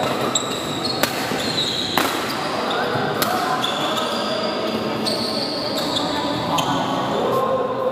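Badminton rally: a few sharp racket hits on the shuttlecock, roughly a second apart, and short high squeaks of shoes on the court mat, over a steady murmur of voices.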